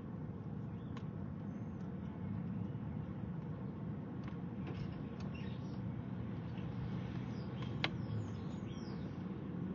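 A few short, high bird chirps, most of them bunched around eight seconds in together with one sharp click, over a steady low outdoor rumble.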